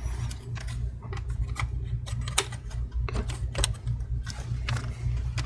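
Irregular light clicks and taps, about three a second, of a metal cover plate being fitted by hand over an M.2 SSD in a laptop's open chassis.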